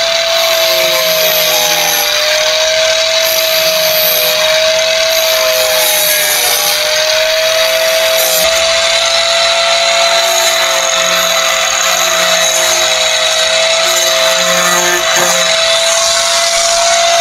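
Handheld angle grinder running steadily while grinding the rough burrs off the edge of a fiberglass part: a continuous motor whine over grinding hiss, its pitch dipping slightly a few times.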